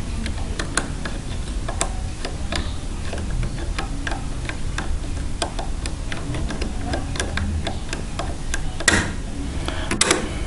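Irregular small metallic clicks and ticks of a 2-in-1 lever pick working the levers inside a 5-lever padlock, with two louder clattering sounds near the end.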